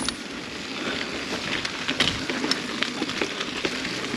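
Mountain bike rolling along a dirt trail: a steady crackle of tyres over the ground, with scattered sharp clicks and knocks from the bike.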